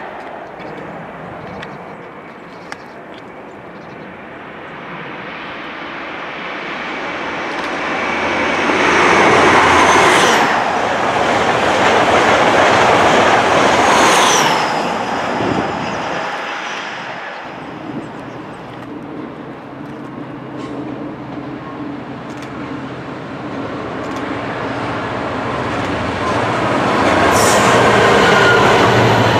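A High Speed Train (InterCity 125) approaches and passes at speed, loudest about 9 to 15 seconds in, with a high whine falling in pitch as it goes by. From about 24 seconds in, a long container freight train rolls past steadily, growing louder.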